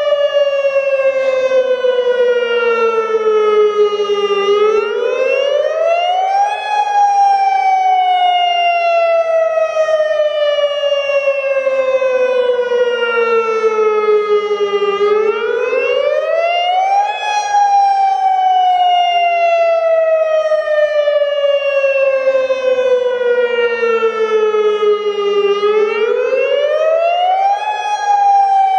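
Federal Signal Modulator 6048 electronic warning siren sounding its Attack wail. Each cycle rises quickly in pitch over about two seconds and then falls slowly over about eight, repeating about every ten seconds, three times in all. It is running with blown drivers, which the owner says still pack a pretty good punch.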